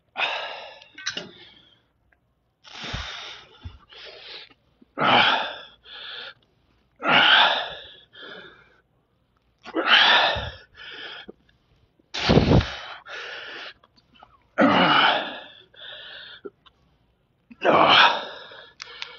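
A man's forceful, hissing breaths with each rep of a one-arm cable curl: a loud push of breath, then a shorter, quieter intake, repeated about every two and a half seconds, eight times.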